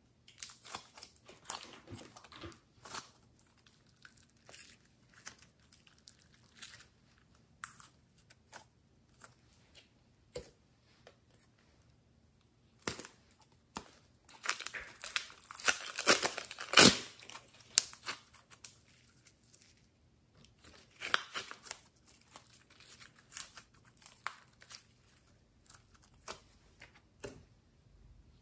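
Slime handled and squished by hand, with scattered sticky clicks and crackles. A plastic piping bag of slime is squeezed, its plastic crinkling as the slime is pressed out, in a dense crackling stretch that is loudest about halfway through.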